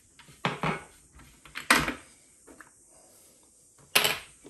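Clunks and knocks of hard parts being handled on a switched-off Tormek T4 water-cooled sharpener while its grinding stone is being taken off. There is a double knock about half a second in, a sharper one nearly two seconds in and another near the end.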